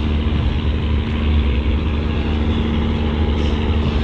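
Ship's diesel engines running steadily: a loud low rumble with a constant hum.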